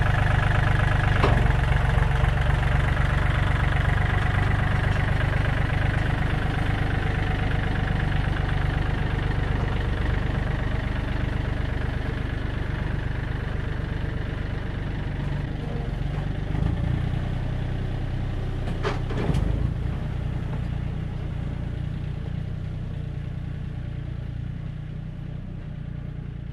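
Yanmar F235 compact tractor's diesel engine running steadily as it pulls the trailer away, slowly growing fainter as it drives off. A knock comes about a second in and another about two-thirds of the way through.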